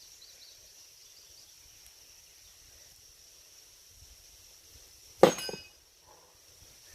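A thrown blade hits the target about five seconds in: one sharp strike with a brief metallic ring and a quick second knock. A steady high insect drone runs underneath.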